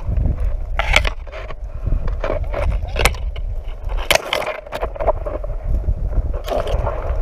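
Branches and leaves brushing and scraping against a body-worn camera and gear while pushing through dense brush, with several sharp scrapes or snaps, about four in all, over a constant low rumble on the microphone.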